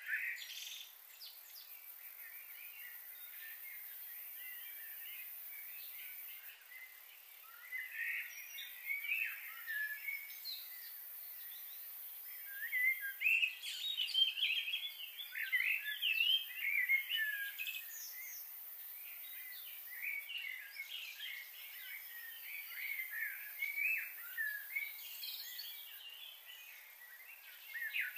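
Many small birds chirping and twittering in quick overlapping calls, sparse at first and busiest in the middle, over a faint steady hiss.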